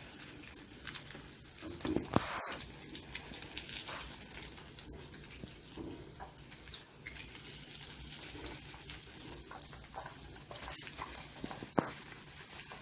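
Steady sizzle of bread cheese bondas deep-frying in hot oil, with a few sharp knocks of a utensil, the loudest about two seconds in and near the end.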